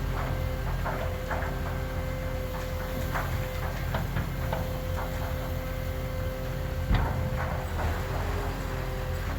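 Heavy earthmoving machine running steadily, with repeated metal clanks and knocks and one louder bang about seven seconds in.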